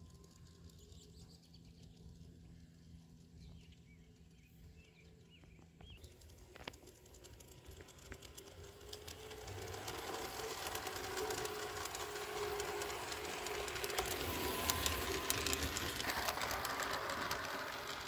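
LGB garden-scale model locomotive running on its track: the electric motor and gears hum and the wheels click over the rails. It gets louder from about eight seconds in as it comes through the tunnel toward the microphone, and fades right at the end. Faint bird chirps are heard before it.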